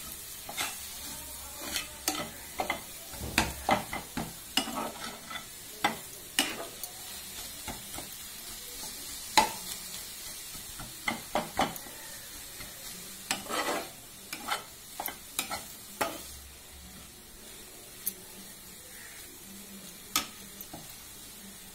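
Chopped green amaranth leaves frying in a pan while a spatula stirs and scrapes them: a faint steady sizzle under irregular scrapes and knocks of the spatula against the pan, which grow sparse in the last few seconds.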